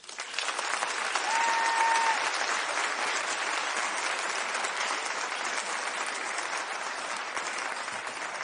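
Audience applauding, swelling quickly at the start and then easing off slowly, with a short steady tone about a second and a half in.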